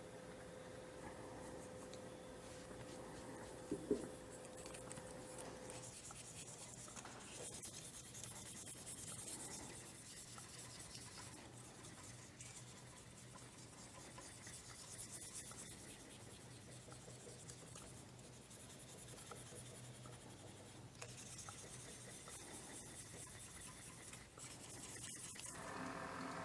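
Faint rubbing and scratching of a pad against a wooden pen blank turning on a lathe, in several stretches, as a CA glue finish is worked on. A low hum runs under it, with a brief knock about four seconds in and a steady tone that stops about six seconds in.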